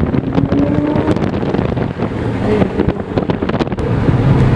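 Straight-piped Lamborghini Murcielago LP640 V12 running at low city speed, heard from inside the car, with wind buffeting the microphone and a scatter of sharp crackles about three seconds in.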